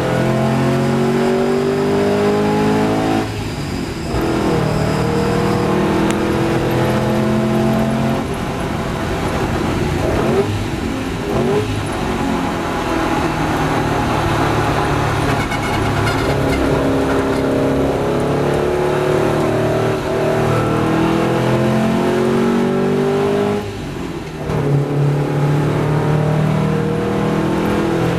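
1954 Porsche 550 Spyder's air-cooled four-cam flat-four running at racing speed, its note climbing through the revs again and again as it pulls through the gears. It drops briefly about three and a half, eleven and twenty-four seconds in.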